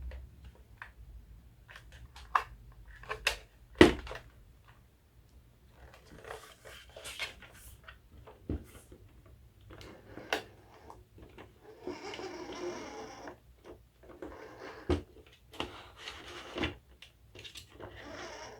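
Handling noises: scattered sharp clicks and knocks, the loudest about four seconds in, with stretches of rustling around the middle and near the end.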